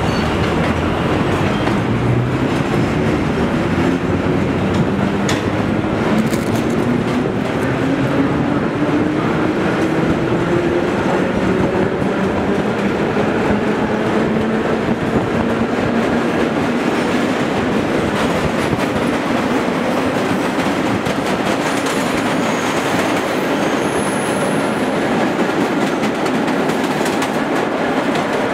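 Vintage 1930s R1–R9 subway train pulling out of a station and gathering speed into the tunnel, heard from inside the car at its end window. A motor whine rises slowly in pitch as the train accelerates, over the steady rumble and clatter of the wheels on the rails.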